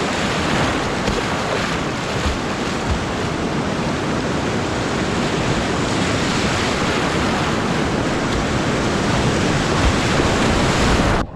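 Loud, steady rush of whitewater in a flooded river rapid, with wind noise on the microphone. It cuts off suddenly near the end.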